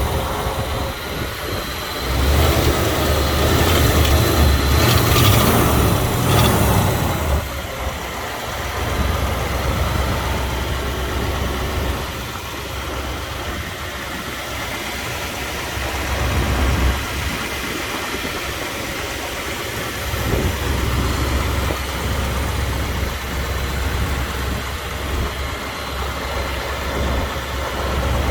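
1956 Continental Mark II's 368 cubic-inch V8 running just after starting: louder for the first several seconds, then settling to a steady idle.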